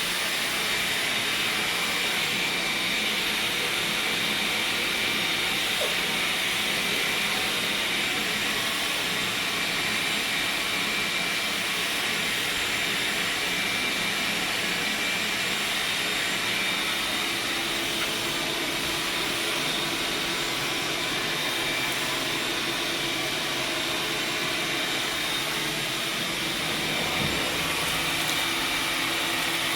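Vacuum cleaner running steadily, picking up dirt and leaves, with a constant high whine from its motor over the rush of air.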